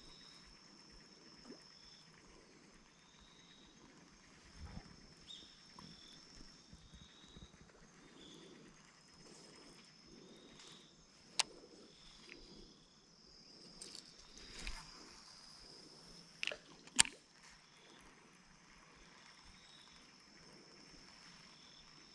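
Faint outdoor ambience with a steady high insect trill and short chirps, broken by a few sharp clicks, the loudest about seventeen seconds in, and some soft knocks.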